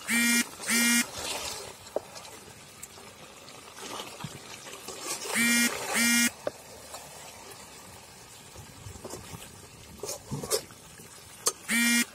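A duck quacking in pairs of short, loud, nasal calls, three times over. Between the pairs there is a faint hiss of meat frying in the pan, with light ladle scrapes.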